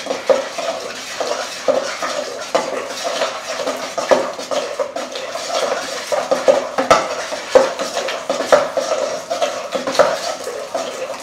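A utensil stirring a thick condensed-milk and cornstarch slime mixture in a bowl, scraping and clinking against the sides over and over.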